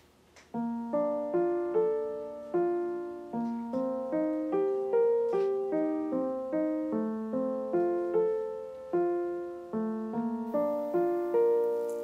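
Background music: a gentle piano melody of single struck notes and soft chords, each left to fade, starting about half a second in.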